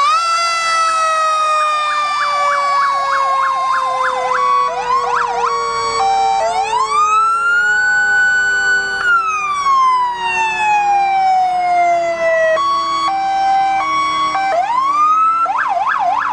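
Several fire truck sirens sound together in overlapping patterns. A long tone winds slowly down while fast yelps run near the start and end. In the middle a wail rises, holds for a couple of seconds and falls away, and near the end a two-note hi-lo alternates.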